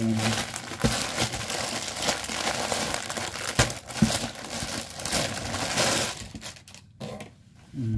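Plastic courier pouch crinkling and rustling loudly as it is opened and the folded pants are pulled out, with scattered sharp crackles. The crinkling dies down about six and a half seconds in.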